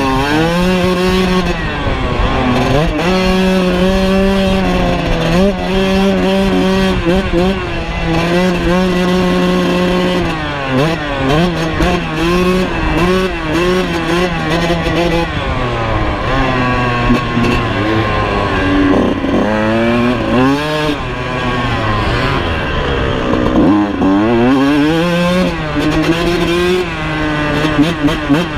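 Kawasaki KX125's 125 cc single-cylinder two-stroke engine, loud and close, revving up hard and dropping back again and again as the rider shifts gears and rolls on and off the throttle.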